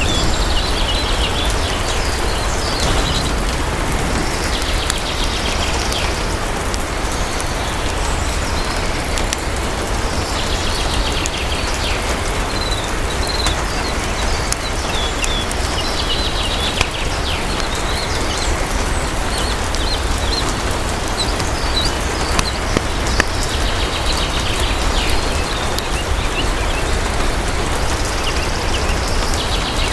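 Steady heavy rain with a low rumble underneath, and birds chirping in short trills every few seconds. A few sharp clicks stand out from the rain noise.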